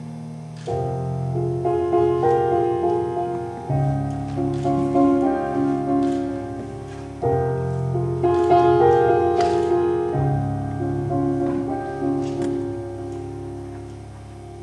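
Slow instrumental music accompanying the act, with sustained chords that change every three to four seconds.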